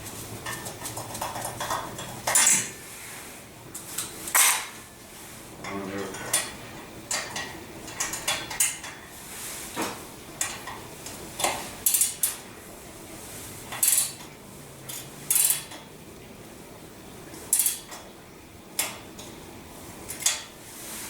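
Metal tools clinking and clanking as they are handled and set down, in irregular sharp knocks spaced a second or so apart.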